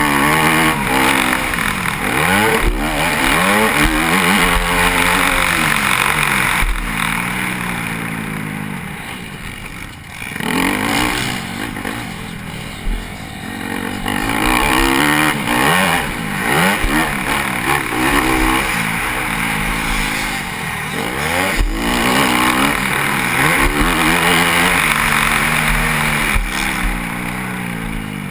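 Motocross dirt bike engine heard from the rider's helmet camera, revving up and dropping off over and over as the rider works the throttle and shifts. The engine note falls away briefly about ten seconds in, then picks up again.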